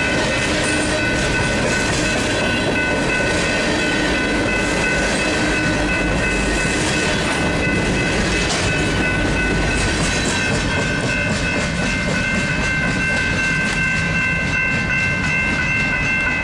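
Freight train's covered hopper cars rolling past, steel wheels rumbling and clicking over the rail joints. Underneath runs the steady ringing of the crossing's electronic bells.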